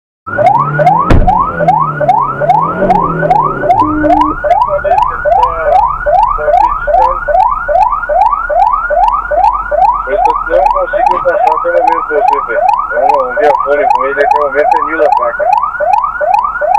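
Police vehicle siren in a rapid yelp, a rising wail repeated about three times a second. It switches on sharply just after the start and runs without a break.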